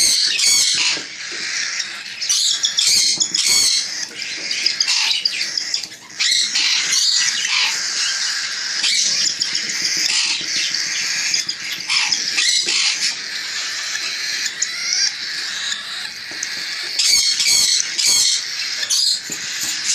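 Pet parrots squawking and chattering without a break, with loud screeches about half a second in, a few seconds in, and again near the end.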